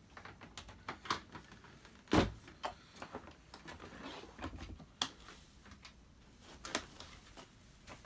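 Plastic housings of small bagged cylinder vacuum cleaners being handled while switched off: scattered clicks and knocks as a bag compartment lid is opened and a dust bag is pulled out. One heavier knock comes about two seconds in.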